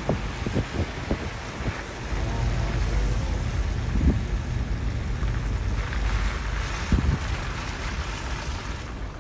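Car driving: steady low road rumble and wind noise inside the moving vehicle, with a few short knocks.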